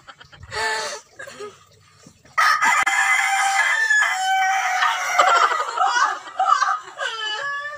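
Rooster crowing: long, loud pitched calls starting about two and a half seconds in and going on to the end.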